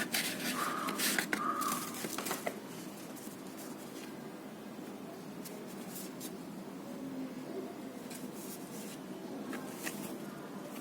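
Hands opening the packaging of a postcard set: rustling and scraping of paper and plastic wrapping, busiest in the first two seconds, then faint occasional clicks and handling noise.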